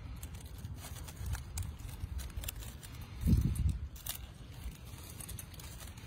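Dry fallen leaves crinkling in scattered small clicks over a steady low rumble, with a louder low thump a little past halfway through.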